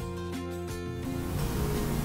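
Background music with sustained notes and a steady pulse.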